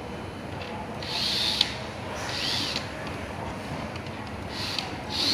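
A small tool or mechanism whirring in three short bursts of about half a second, the first ending in a sharp click.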